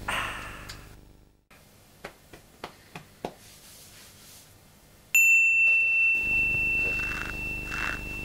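A single high, bell-like ding that starts suddenly about five seconds in and rings on, slowly fading over about three seconds. A few soft clicks come before it, and soft footsteps begin near the end.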